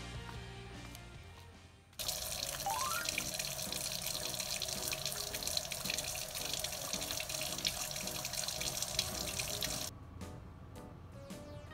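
Tap water running in a steady stream into a sink, starting abruptly with a brief rising tone and cutting off abruptly near the end.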